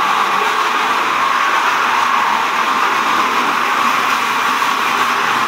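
Single-disc rotary floor sander running steadily as it sands a floor, a constant, even motor-and-pad noise.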